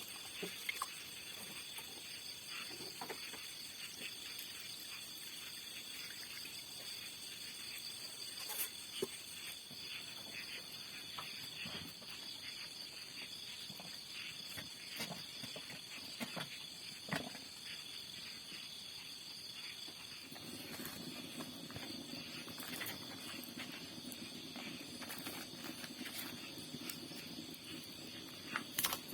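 Faint, steady outdoor insect chorus with scattered small clicks and knocks; a low rumble joins about two-thirds of the way through.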